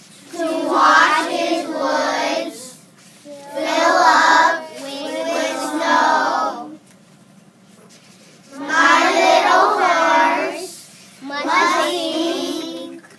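A class of children reading aloud together in slow, drawn-out unison, chanting short phrases of a poem with pauses between them.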